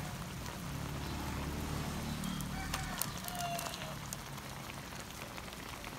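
A pan of braised round scad simmering, its liquid bubbling and crackling, with a few soft knocks as tomato wedges are tipped in from a bamboo basket.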